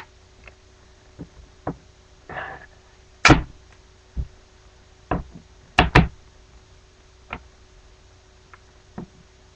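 Handling of the iPod Touch's packaging: a string of separate taps and knocks against the box, about a dozen in all, the loudest about three and six seconds in. There is a brief rustle of the plastic wrap being peeled a little over two seconds in.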